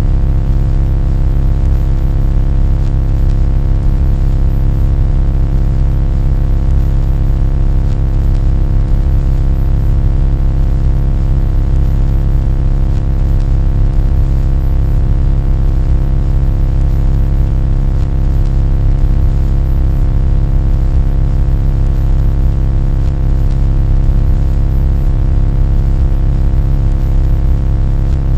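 Loud, steady low droning hum with many fixed tones layered over it, unchanging throughout.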